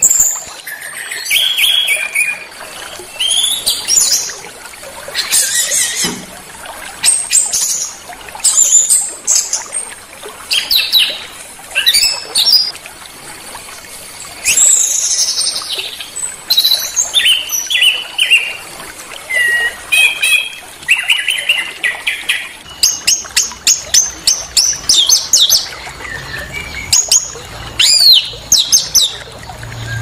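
Recorded song of small songbirds played as masteran, a training track for songbirds: sharp chirps, trills and rising and falling whistled phrases follow one another with short gaps. In the second half there are fast rattling runs of notes.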